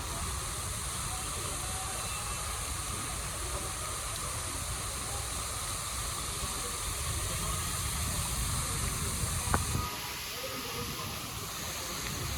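Heavy rain falling in a steady hiss, with a low, fluctuating rumble underneath and a single sharp click about nine and a half seconds in.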